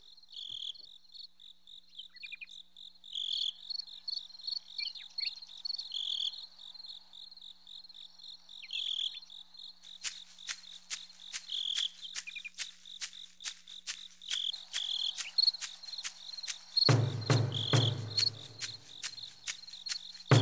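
Crickets chirping in a steady pulsing trill. From about halfway, running footfalls on a dirt trail join in as even crunching steps, and a low rumble, likely wind on the microphone, comes in near the end.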